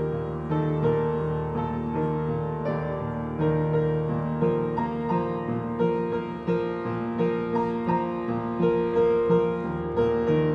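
Piano music: a slow melody of held notes over sustained low notes.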